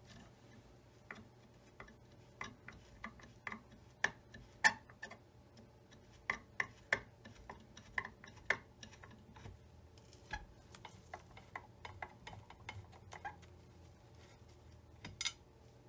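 Screwdriver working a screw on the hinged bed extension of a Singer Featherweight 221: a run of small, irregular metal clicks and taps, with a sharper clack near the end.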